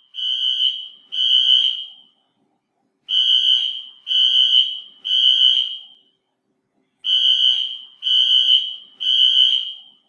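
Fire alarm sounding a loud, high-pitched steady tone in repeated groups of three long beeps with a short pause between groups: the temporal-three evacuation pattern.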